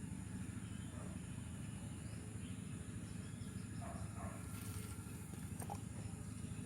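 Faint outdoor background: a steady high insect drone like crickets, over a low steady hum, with a few faint chirps about four seconds in.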